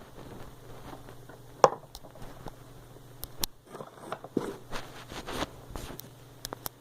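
Handling noise: small clicks, taps and rustling as hands fiddle with pencil pieces near a handheld microphone, with a sharp tap about 1.7 s in and a steady low hum underneath.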